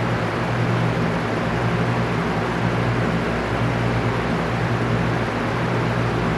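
Electric fan running steadily: an even rush of moving air with a low motor hum underneath.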